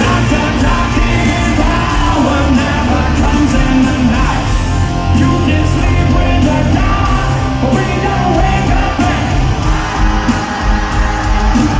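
Live hard rock band playing, with a lead singer's voice over loud drums, bass and distorted electric guitars.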